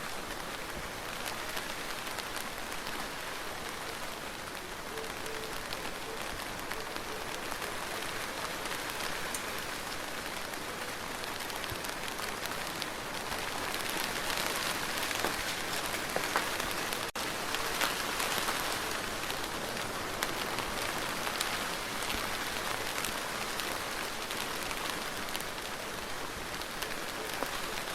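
Steady rain falling on a surface, a dense patter of drops that grows a little louder in the middle, with a split-second gap just past halfway.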